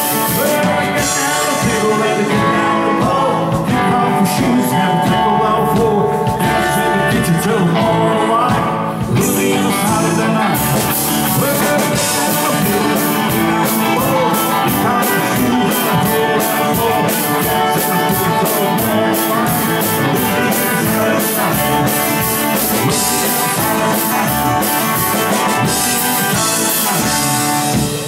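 Live country-rock band playing with guitars. The drums keep a steady beat from about ten seconds in.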